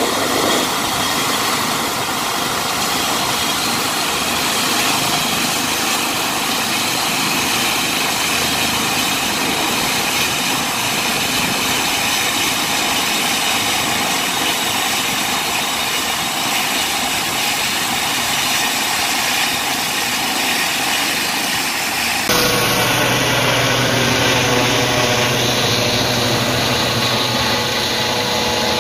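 Helicopter turbine engine and rotor running, a steady rushing noise. About three-quarters of the way through it changes abruptly to a steadier hum with whining tones as the helicopter flies overhead.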